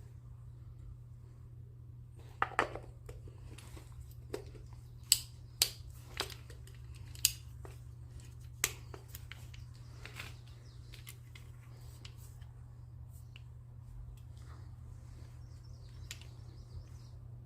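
Scattered sharp clicks and light knocks, the loudest between about two and nine seconds in, over a steady low hum.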